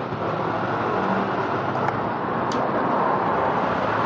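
Steady road traffic noise, with a couple of faint clicks near the middle.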